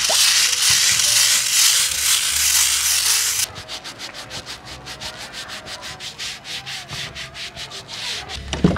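A small hand scrubbing brush scrubbed hard back and forth over a concrete balcony floor, a loud rasping scrub that stops abruptly about three and a half seconds in. After it comes a much quieter run of fast, even ticks.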